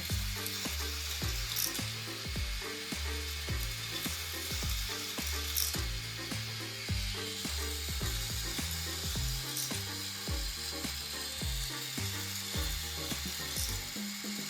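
K'nex toy roller coaster running: a steady plastic clattering and ratcheting from the chain lift and the trains rolling along the track, with a few sharp clicks. A bass-heavy background music track plays under it.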